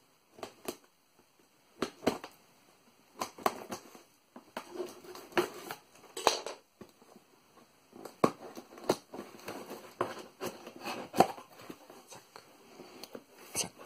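Cardboard parcel being opened: a small knife scratching and slitting the packing tape, then tape being peeled and cardboard flaps rustling and creaking as they are pried up. The sound comes as irregular short scrapes and clicks with quiet gaps between.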